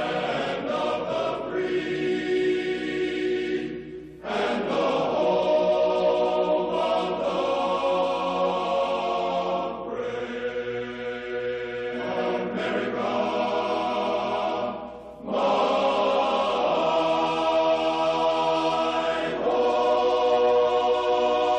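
A choir singing slow, held chords in long phrases, with brief breaks about four seconds and fifteen seconds in.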